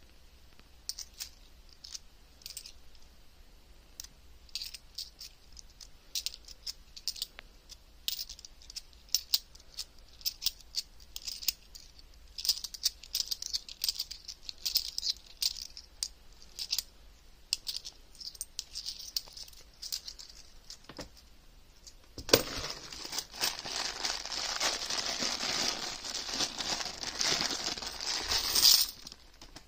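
50p coins clicking and clinking together as they are handled and sorted, a few light clicks a second. About 22 seconds in, a clear plastic coin bag crinkles and rustles steadily for about six seconds, louder than the coins, then stops just before the end.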